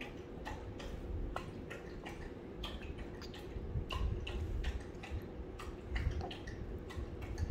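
A baby gumming and sucking on a slippery mango seed with flesh on it: a run of small, irregular wet clicks and smacks.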